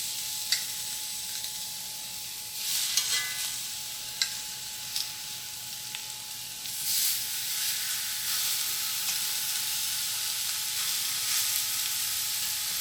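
Bone-in, skin-on chicken thighs sizzling steadily in a hot, dry skillet after being laid in skin side down, with a few sharp clicks and brief louder bursts of sizzle as pieces go in.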